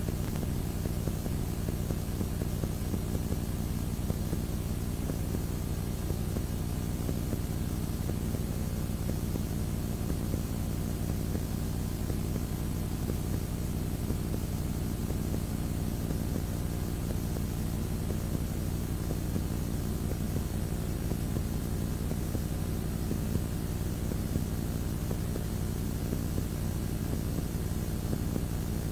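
Steady low rumbling drone with a constant hum and a faint hiss, unchanging throughout.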